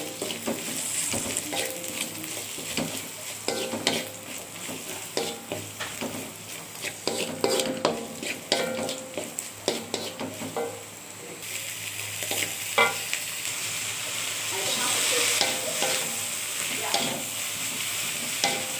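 Food sizzling in a frying pan while a utensil stirs it, with frequent short clicks and scrapes against the pan. The sizzle grows louder about two-thirds of the way through.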